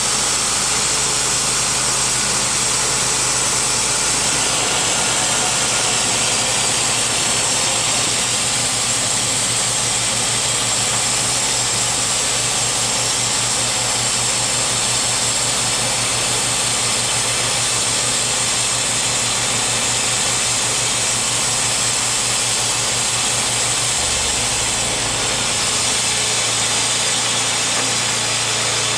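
Timberking B-20 portable bandsaw mill running steadily, its engine driving the band blade as the saw head moves along a white oak log to cut a board, with a steady high hiss over the engine's hum.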